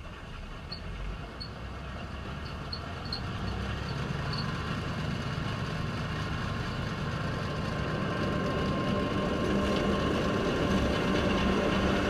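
John Deere 9500 combine harvester running as it cuts barley, a dense steady mechanical rumble that grows steadily louder.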